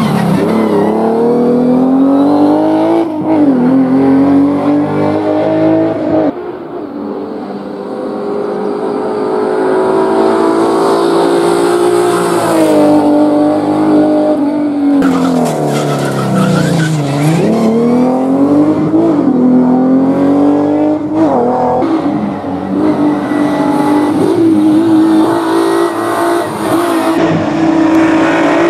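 Historic Group A racing saloon's engine revving hard up a climb, its pitch rising and dropping back with each gear change. Around the middle it falls low as the car slows for a bend, then climbs again. The sound jumps abruptly a few times between passes.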